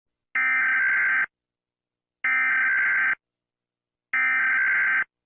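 Three bursts of Emergency Alert System SAME header data: a raspy digital screech, each burst just under a second long, with about a second of silence between. The bursts encode the alert's header and mark the start of an emergency alert.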